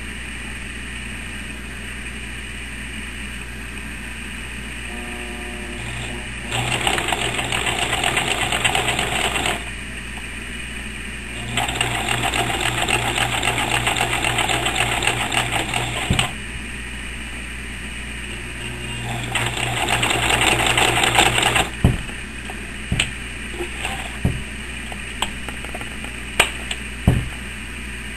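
Singer sewing machine stitching in three runs of a few seconds each, with pauses between; the middle run is the longest, and the last picks up speed as it starts. A few scattered clicks and knocks follow as the work is handled.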